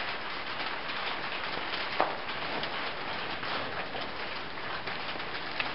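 Steady rain drumming on a barn's metal roof, with a single sharp snap about two seconds in.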